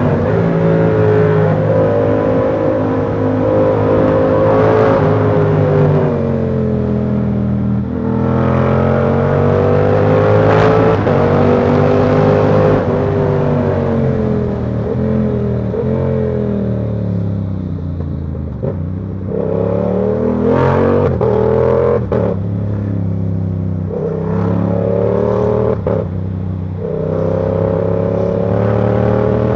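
Yamaha R7's parallel-twin engine through a Ko Lightning aftermarket exhaust, revving up and falling back again and again as the bike accelerates and slows through the gears.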